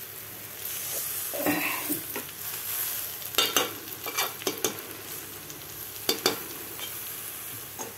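Ivy gourd and peanut fry sizzling steadily in a pan as a slotted metal spatula stirs it. The spatula scrapes and clicks against the pan in a few short bursts in the middle.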